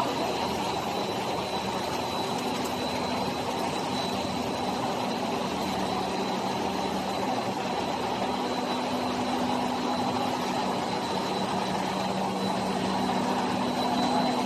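Cheese ball snack production line running: a steady mechanical hum of motors and fans with a thin high whine over it, unchanging throughout.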